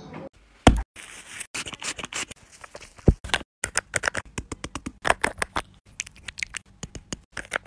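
Quick, irregular taps and pats of fingers on a smooth rubbery surface, mixed with short hissing pumps of a spray-mist bottle. A single heavy thump comes just under a second in.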